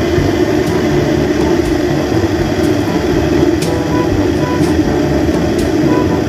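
Stainless-steel electric kettle heating water toward the boil: a steady rumble with a few faint ticks, the water not yet boiling.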